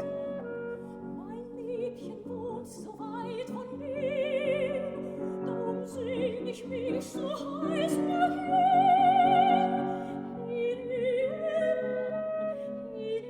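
Classical art song: a soprano sings with wide vibrato over piano accompaniment, holding a long, loud high note about eight seconds in.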